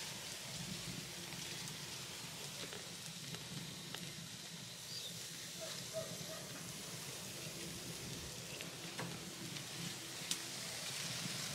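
Pork loin skewers sizzling faintly on a wire grill over wood coals, with a few scattered crackles.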